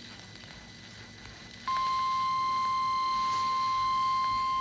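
Emergency alert attention tone: after a short gap of low hiss, a single steady pitch near 1 kHz starts suddenly and holds unbroken, the NOAA Weather Radio 1050 Hz warning alarm that announces a tornado warning.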